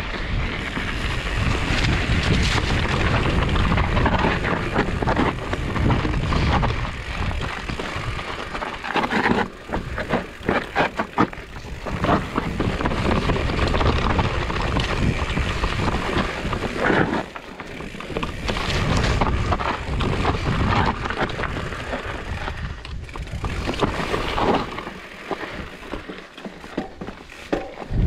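Wind buffeting the microphone with tyre noise and rattling from a Trek Farley fat-tyre mountain bike riding a trail, with a run of quick clicks about ten seconds in.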